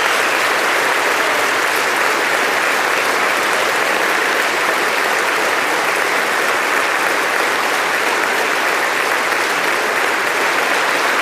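An audience applauding steadily, without a break.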